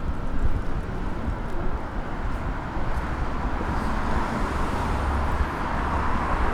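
City street traffic: a steady low rumble of vehicles, with a wash of tyre and engine noise that swells over the second half as a vehicle passes close by.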